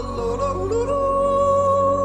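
Background music with slow, long-held notes; the melody line dips and then slides up in pitch within the first second.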